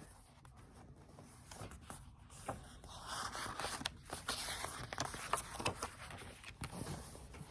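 Faint rustling of paper with a few light taps as the pages of a picture book are turned; the rustle is strongest from about three to seven seconds in.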